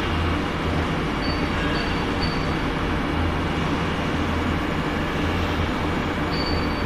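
CNC lathe running through an external threading cycle: a steady mechanical hum and whir. A few short high-pitched tones sound about a second in and again near the end.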